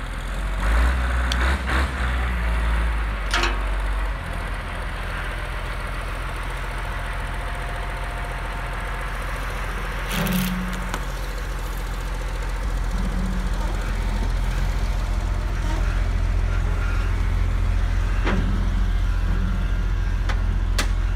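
Case 544G wheel loader's diesel engine running steadily as it lifts a pickup cab off its frame, growing louder over the second half. A few sharp knocks sound through it, four in all.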